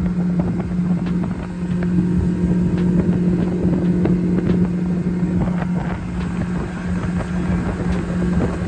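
Boat's outboard motor running at a steady cruising speed, with wind rushing over the microphone and scattered light ticks.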